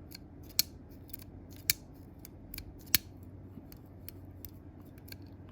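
A freshly reassembled SOG Terminus XR folding knife being flipped open and closed to check its action: sharp metallic clicks of the blade snapping open and the XR crossbar lock engaging. There are three loud clicks about a second apart among many lighter ticks.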